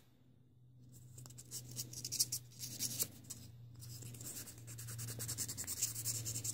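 A small etched-metal gearbox part is rubbed by hand against emery paper in quick scratchy back-and-forth strokes. This smooths the edges where the etch cusps were filed off. The strokes start about half a second in and grow denser and louder toward the end.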